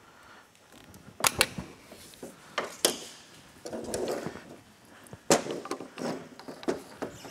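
Sharp clicks and knocks from a screwdriver working a hose clamp, with a scraping rub about four seconds in as a rubber hose is twisted and pulled off an engine fitting.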